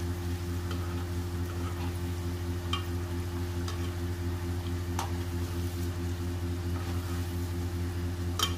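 Cabbage Manchurian balls deep-frying in hot oil, sizzling steadily with a few sharp pops, over a steady low hum.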